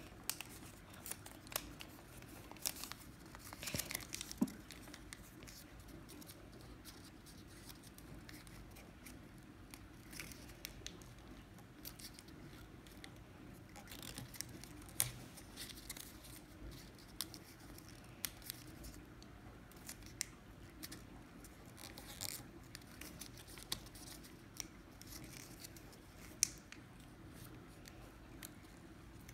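Origami paper being folded and creased by hand: faint, intermittent rustling and crinkling with scattered sharp crackles, busiest about four seconds in.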